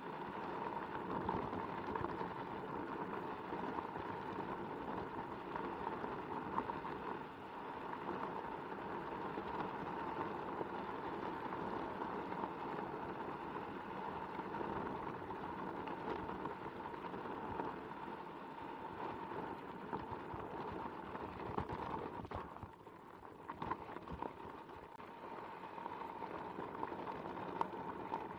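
Onewheel XR electric board riding a gravel trail: the steady whine of its hub motor over the crunch of the tyre rolling on gravel, with scattered sharp ticks of stones.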